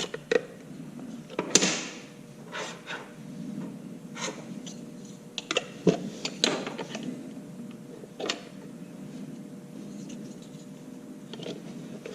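Handling noise from the plastic parts of a motorized pan-tilt camera head as a piece is tried in place: irregular clicks, taps and light knocks, the sharpest about a second and a half in and again around six and eight seconds in.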